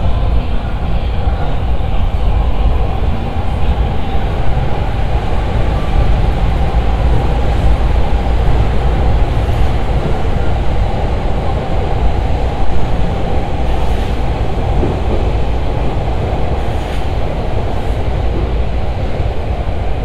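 A train running along the elevated railway viaduct beside the street, a steady, loud, deep rumble.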